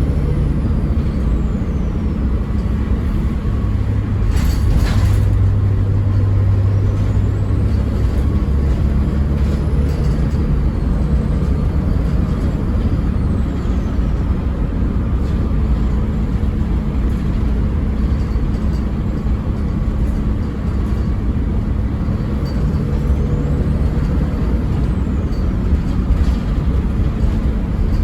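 Bus diesel engine running under way, its note stepping as the automatic gearbox shifts, with a faint high turbo whistle rising and falling several times. A short hiss of air comes about four and a half seconds in.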